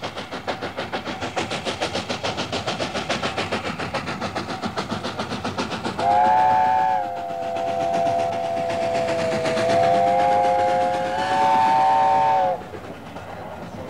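The preserved LNER A4 Pacific Sir Nigel Gresley, a three-cylinder steam locomotive, working hard with rapid, even exhaust beats. About six seconds in, its chime whistle sounds a chord of several notes for about six seconds, sagging in pitch midway and rising again before cutting off sharply. The exhaust beats carry on more faintly afterwards.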